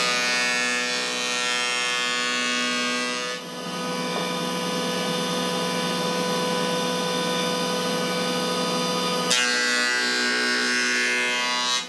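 Jointer running with a steady motor whine, its cutterhead planing the outside of a mango-wood bowl blank. A rougher cutting noise sits over the whine for the first three seconds and again from about three-quarters through.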